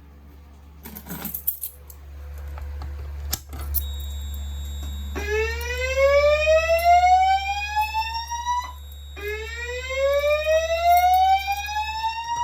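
System Sensor SPSWL speaker strobe on a Notifier DVC voice evacuation panel sounding the slow whoop evacuation tone: two rising sweeps of about three and a half seconds each, the first about five seconds in and the second about nine seconds in. A few clicks come before the tone starts.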